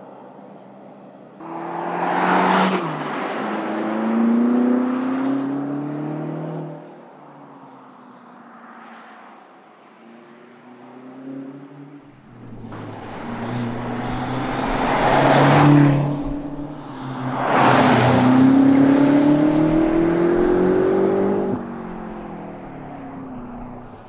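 A BMW M car's engine accelerating hard, its note rising and dropping back at each upshift as the car drives past. It happens twice: a first run a couple of seconds in, and a longer, louder pass with two peaks from about halfway.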